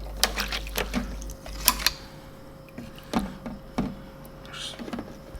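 Clicks and knocks of metal tools being handled at an ultrasonic cleaner, over a low hum that cuts off about a second and a half in.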